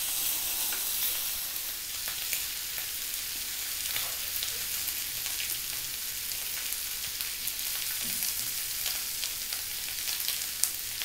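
Sirloin steaks sizzling in a hot ribbed grill pan: a steady frying hiss with scattered small pops and spits of fat.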